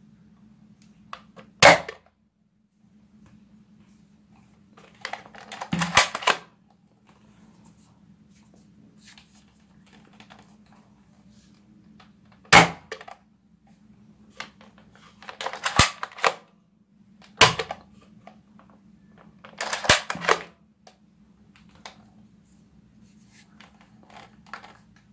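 Toy foam-dart blaster being fired: three sharp snaps spread out, with three longer bursts of plastic rattling and clatter in between, over a faint steady low hum.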